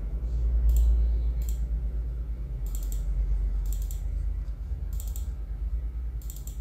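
Computer mouse clicking: two single clicks, then a series of quick double-clicks about once a second as folders are opened. A steady low hum runs underneath.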